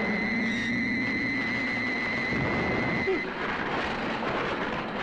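Tokusatsu fight-scene soundtrack: a steady rushing storm-wind noise with a steady high electronic tone over it. The tone stops about three seconds in, with a brief louder accent.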